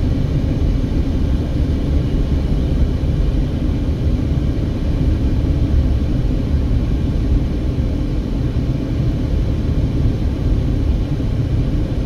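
Steady low rumble of tyre, road and engine noise heard inside the cabin of a moving Mercedes-Benz car.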